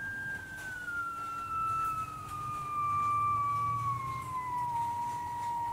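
Heterodyne beat note from a Hammarlund HQ-100 receiver's loudspeaker: its BFO beating against an unmodulated 455 kHz test signal. A single whistle-like tone falls in pitch in small steps as the BFO inductor L5 is tuned toward zero beat. A fainter, higher tone falls alongside it, over a low hum.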